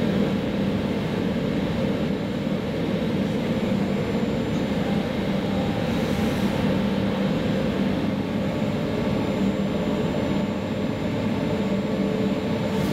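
VR Sm4 electric commuter train running at speed, heard from inside the passenger car: a steady running rumble with a constant low hum.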